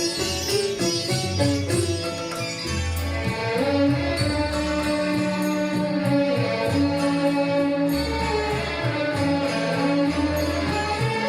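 Instrumental interlude of a Hindi film ghazal, with no singing: a melody over a line of held bass notes.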